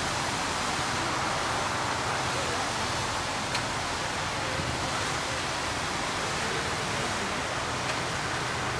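Steady rushing hiss of a water jet from a burst main, shooting up from the street as a tall geyser and spraying down across the road.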